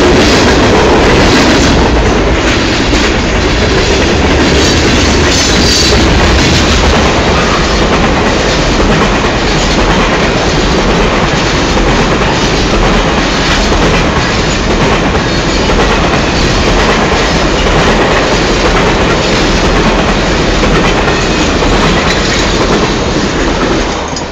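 Freight cars rolling past close by: a loud, steady clatter of steel wheels over rail joints with a heavy rumble, and a brief high wheel squeal about six seconds in.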